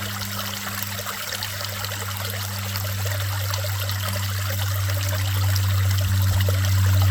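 Creek water running and trickling over a steady low hum that grows louder toward the end.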